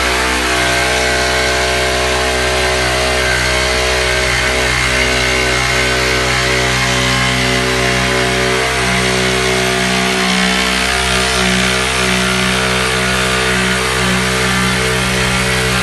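Festool cordless jigsaw running steadily, its motor and blade stroke making a continuous buzz that shifts a little in pitch about halfway through as it cuts.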